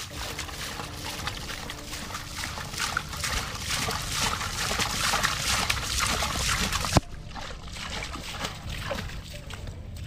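Hands digging and squelching in wet mud and shallow water, a dense run of small wet crackles and sloshes. After a sharp click about seven seconds in, it gets suddenly quieter.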